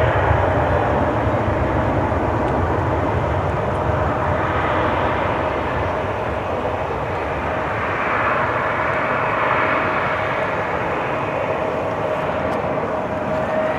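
Twin-engine regional jet taking off at full power, rolling down the runway and climbing away: a steady jet roar with a thin, steady whine running through it that swells gently a couple of times.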